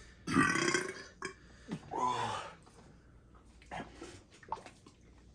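Two long, loud belches about a second apart from a person overfull with chili dogs.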